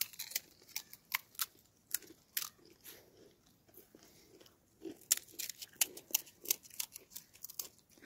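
Crisp pani puri shells crunching and crackling: a scatter of short, sharp cracks, busiest in the second half.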